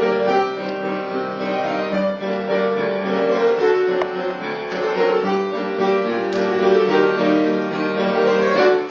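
Background music: piano with bowed strings.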